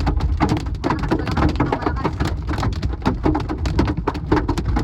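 Heavy rain pattering hard on a surface: a dense, irregular patter of drops over a steady low rumble.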